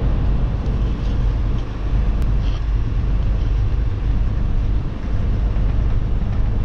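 Steady low rumble of a vehicle driving along a dirt road, heard from inside the cab.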